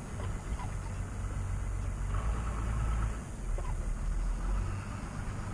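Toyota Land Cruiser 60-series engine running steadily at low revs with a low rumble.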